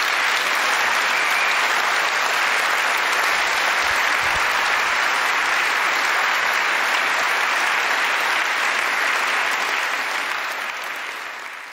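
A large audience applauding, a dense steady clatter of many hands clapping that dies away over the last couple of seconds.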